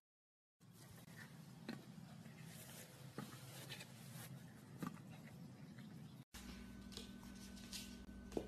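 Very faint background noise with a few soft clicks and taps scattered through it; after a sudden cut about six seconds in, a faint steady hum comes in.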